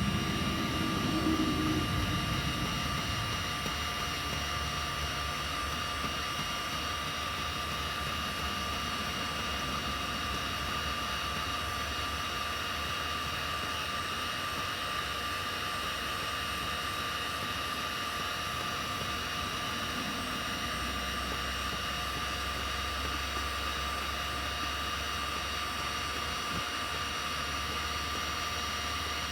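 Electric heat gun blowing steadily: a rush of air with a constant high fan whine.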